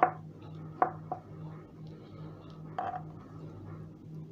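A few light clicks and taps of hands and a small tool working bait on a plastic chopping board, about four in the first three seconds, over a faint low hum.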